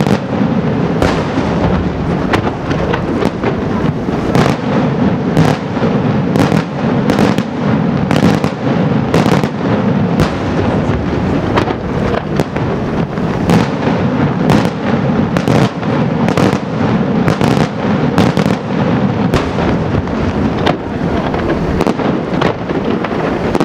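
Daytime fireworks: aerial shells bursting in a rapid, unbroken string of bangs, several a second, that merge into a constant loud rumble.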